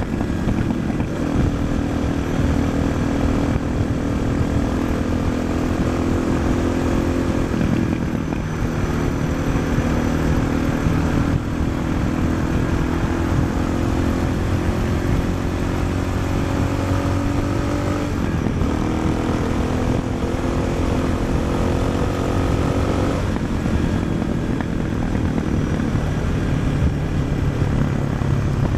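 2004 Suzuki DR650's single-cylinder four-stroke engine, breathing through an aftermarket Dominator exhaust, running under way on the road as picked up by a helmet-mounted action camera's built-in mic. The engine note rises slowly and shifts in steps several times as the revs change.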